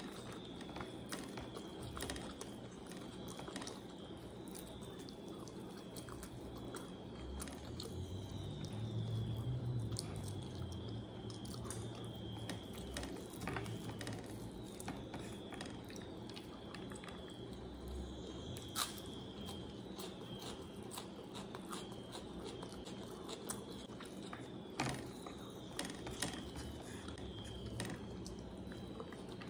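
Close-up eating sounds: someone chewing mouthfuls of chicken biryani eaten by hand, with many scattered sharp clicks.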